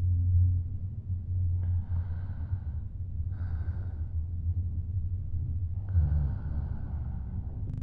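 A woman breathing slowly and audibly, three long breaths about two seconds apart, over a loud, steady low rumble.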